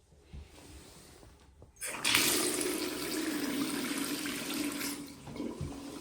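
A rush of running water that starts suddenly about two seconds in, runs steadily for about three seconds, then stops.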